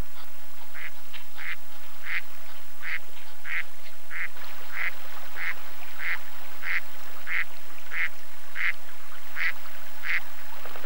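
Mallard ducks quacking in a steady series, about one and a half quacks a second, stopping shortly before the end.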